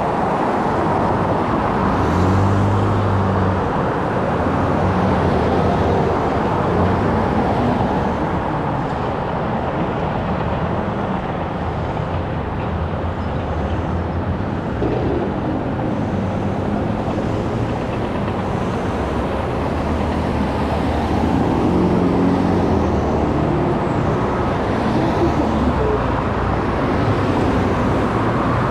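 A car driving along a highway: steady road and tyre noise with a low engine hum whose pitch shifts a little now and then.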